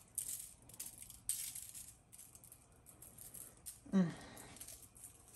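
A seasoning shaker rattles in quick shakes as spice is sprinkled over chicken, the shaking thinning out after about two seconds. About four seconds in there is a brief voice sound falling in pitch.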